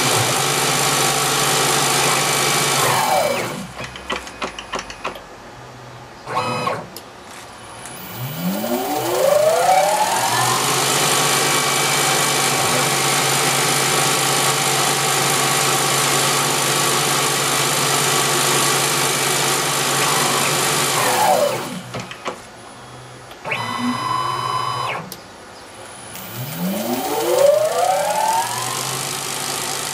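Small CNC lathe spindle running steadily, then winding down to a stop about three seconds in; after a few clicks the spindle spins back up with a rising whine and runs steadily again. The same spin-down, a short motor whine as the tool slide moves, and spin-up come again in the last third: the spindle stopping for each tool change on an M05 spindle-stop command.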